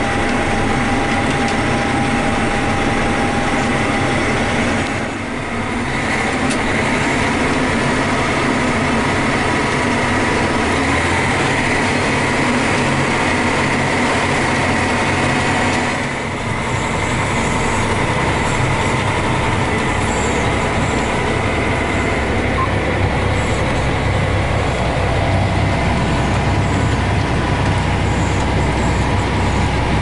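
Steady running noise of a John Deere tractor and combine in corn harvest, heard from inside the tractor cab, with steady whining tones over an engine rumble. The sound dips briefly about five seconds in and again about sixteen seconds in, with a deeper rumble after the second dip.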